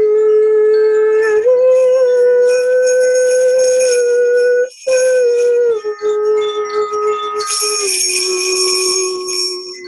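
A woman's vocal toning in long held high notes. The pitch steps up a little after about a second and drops lower twice later on, with a short breath break near the middle. Small bells jingle over the voice twice, the second time brighter and near the end.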